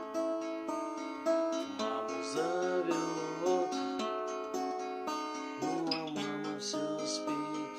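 Acoustic guitar music: plucked and strummed chords in a steady run of notes.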